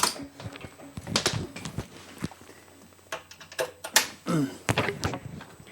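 A string of separate sharp clicks and knocks from controls being pressed and turned, with a brief low mutter among them.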